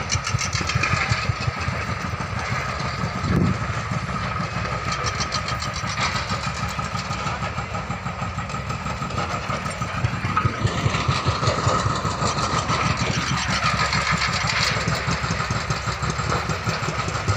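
Excavators' diesel engines running steadily with a fast, even engine beat.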